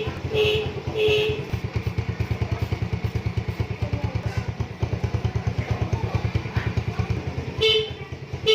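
Motorcycle engine idling with a steady rapid beat, while its electric horn gives three short toots at the start and two more near the end.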